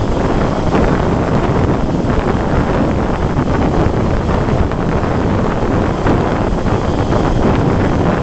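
Steady wind noise buffeting the microphone of a camera mounted on a moving motorcycle, mixed with the rumble of the ride.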